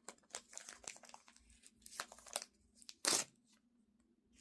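Small plastic wrapper crinkling and rustling as it is handled and pulled open, in a series of short rustles with one louder one about three seconds in.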